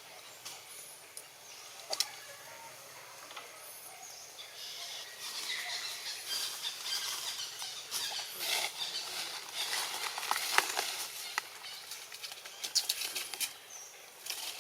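Dry rustling and crackling, like leaves and twigs being disturbed, growing denser about a third of the way in, with a few sharp clicks and faint high squeaks.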